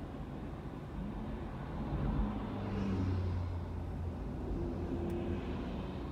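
City road traffic heard from inside a car: a steady low engine rumble, with a heavier engine hum swelling about two seconds in and easing off over the next couple of seconds.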